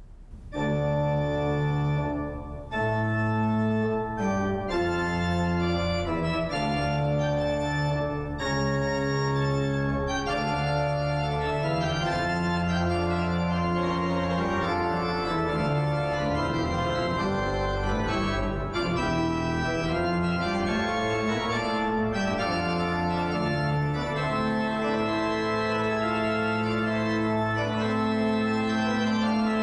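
Organ music: sustained chords held and changing every second or two, starting abruptly about half a second in.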